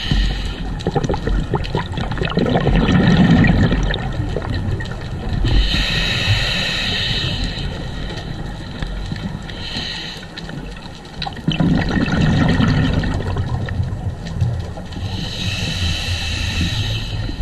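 Underwater sound of a scuba diver breathing through a regulator: spells of hissing inhalation alternate with low bubbling exhalations, over a steady wash of water against the camera housing.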